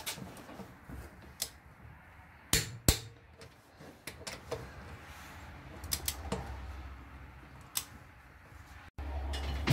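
A handful of sharp, separate clicks, a second or more apart, from a torque wrench and socket on the lug nuts as they are tightened to 100 foot-pounds. Near the end a low steady hum comes in.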